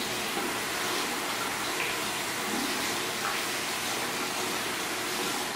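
Bathroom sink faucet running in a steady stream, water splashing over hands as they scrub a small plastic case under it.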